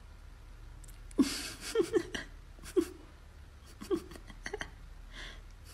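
A person chuckling quietly in short, separate bursts, about six times, each a brief falling sound.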